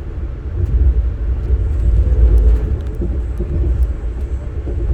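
Steady low rumble of a passenger train running, heard from on board, with faint steady tones above it.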